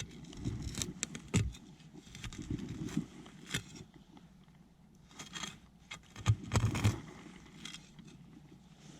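Scraping, crunching and knocking of digging and working around a buried object in soil, with irregular short clicks and a cluster of heavier thuds near the end.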